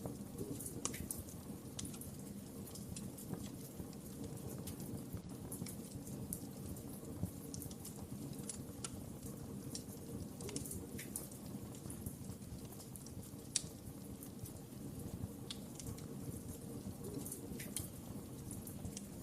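Wood fire crackling in a fireplace: irregular sharp pops and snaps over a steady low rumble, with a louder pop now and then.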